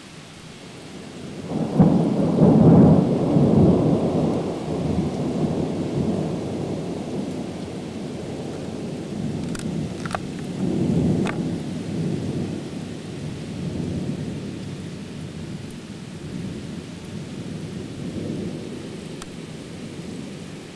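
Thunder after a nearby lightning flash: a loud crash about two seconds in turns into a long rolling rumble that swells again midway and slowly dies away. Steady rain falls underneath.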